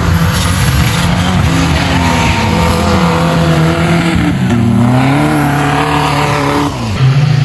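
A vehicle engine running hard under load, its pitch rising and falling as the throttle changes. It drops sharply near the end, then picks up again at once.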